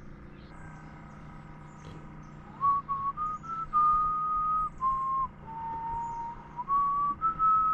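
A person whistling a slow tune: single clear notes, each held for a moment, stepping up and down in pitch, starting a little over two seconds in.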